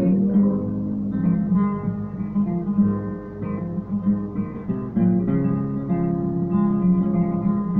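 Acoustic guitar strummed, playing an instrumental break in a hymn tune without singing.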